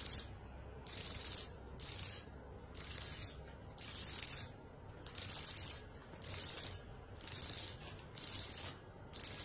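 Vibrating signal receiver of a xóc đĩa cheating set buzzing in short pulses, about one a second, ten in a row. The count of about ten pulses signals four black coins face up.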